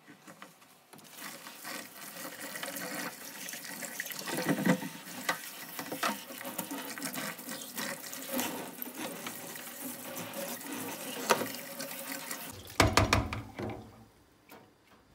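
Kitchen tap running and splashing into a stainless-steel sink as the basin is rinsed, with small knocks against the steel. Near the end come a few loud knocks as the drain basket is set back into the drain.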